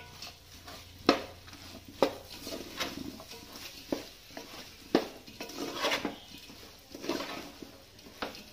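A spoon stirring a thick mix of boiled tapioca chunks and beef pieces in a large metal pot, scraping and knocking against the pot's side about once a second.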